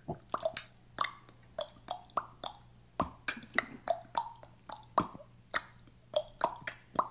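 A quick, irregular run of short hollow pops, each with a brief ringing pitch, about two or three a second.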